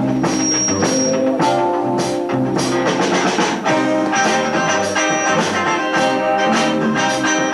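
Live rock band playing, an electric guitar over bass and a drum kit keeping a steady beat.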